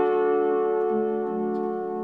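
Background music: sustained held chords, with a change of note about a second in, slowly fading.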